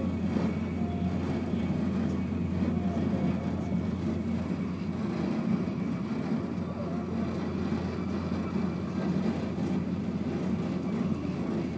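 Steady low rumble and rush of a Eurostar high-speed train running at speed, heard from inside the passenger carriage.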